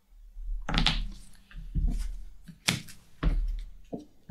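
Hands handling trading cards on a playmat: about five short, soft knocks and rustles as cards are put down and moved.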